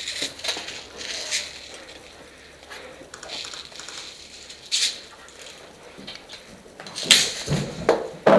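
Irregular scuffing and rustling noises, a handful of short scrapes spread out and coming thicker and louder near the end.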